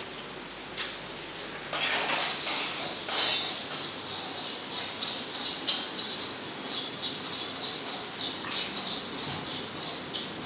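Foil cat food pouch crinkling and crackling as a kitten bats, grabs and bites it. A rapid, irregular crackle starts about two seconds in and is loudest about a second later.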